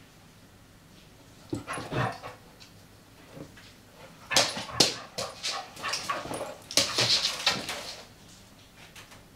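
Two dogs playing: short yips and whimpers mixed with scuffling, in bursts about one and a half, four and a half and six to eight seconds in.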